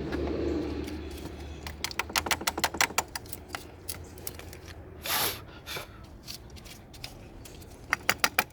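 A run of sharp, irregular clicks and taps, a short hiss about five seconds in, then a quick cluster of clicks near the end. A low steady hum fades away in the first second.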